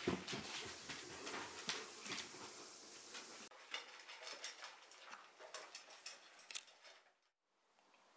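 Light clinking and tapping of kitchen utensils against dishes, a scatter of small clicks that becomes quieter and sparser about three and a half seconds in.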